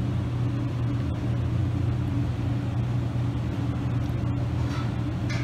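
Steady low machine hum, an unbroken drone with a fainter higher overtone, with a brief soft rustle near the end.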